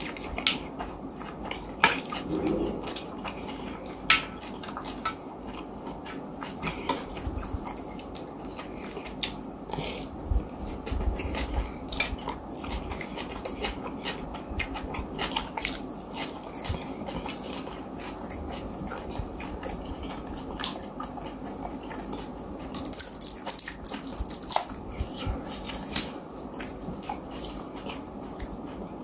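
Close-miked eating sounds: chewing and mouth noises over a mouthful of rice, with scattered sharp clicks of a spoon scooping food from the plate.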